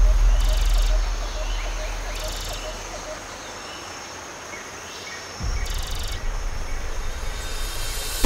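Outdoor nature ambience: an insect trills in three short buzzing spells, small birds give short falling chirps, and a low rumble runs beneath, fading in the middle and returning sharply about five seconds in.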